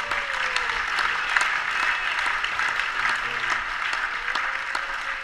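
Congregation applauding: many hands clapping in a dense crackle that eases off near the end.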